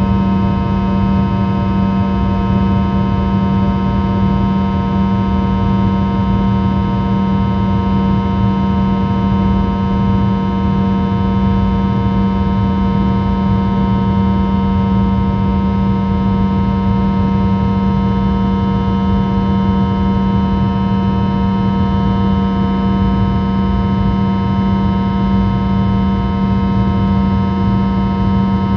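Rolls-Royce Tay 650-15 turbofan engine of a Fokker 100 running steadily in flight, heard inside the cabin right beside the rear-mounted engine. It is a constant loud drone: a strong low hum with many steady whining tones above it and a rumble beneath.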